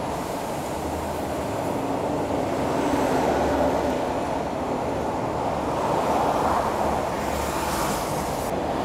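East Rail Line electric multiple-unit train running along the track, a steady rumble of wheels on rail.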